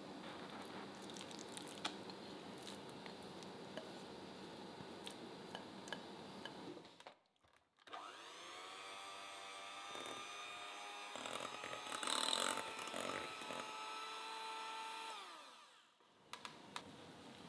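Electric hand mixer beating thick cake batter in a glass bowl. Its whine rises as it starts, runs steadily for several seconds, gets briefly louder partway through, then winds down as it stops.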